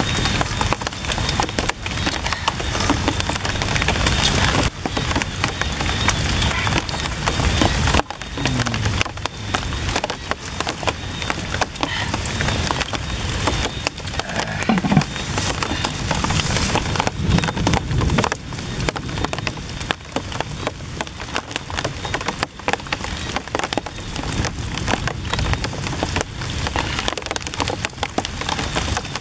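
Steady rain pattering on leaves and the ground: a dense, continuous crackle of drops.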